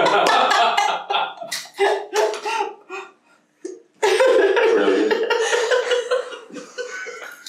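An elderly man and woman laughing in bursts, with a few muttered words, a short pause about three seconds in, then a longer bout of laughter that tails off.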